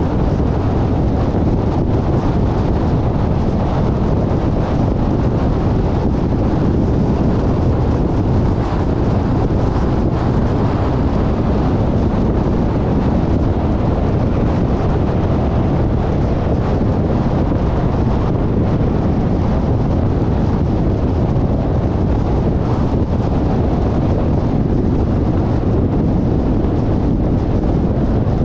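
Steady road noise of a car driving: an even, low rumble of tyres and wind, with wind buffeting the microphone.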